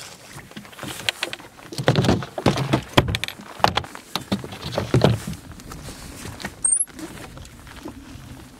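Irregular knocks, clunks and rustling as gear is handled in a fishing boat, with one sharp clack about seven seconds in.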